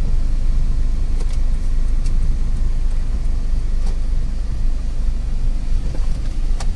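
Toyota Fortuner driving slowly, heard from inside the cabin: a steady low engine and road rumble with a few faint clicks. The engine runs evenly with no knocking, its starting, knocking and smoking fault repaired.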